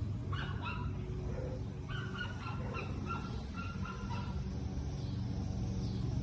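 A run of short, pitched animal calls repeating over the first four seconds or so, over a steady low rumble.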